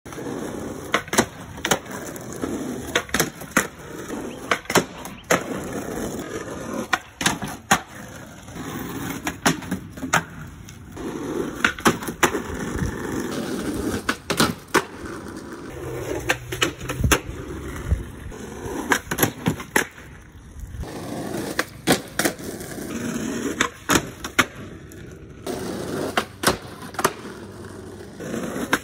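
Skateboard wheels rolling on rough asphalt, broken by repeated sharp pops, clacks of the board and landings as tricks are done again and again.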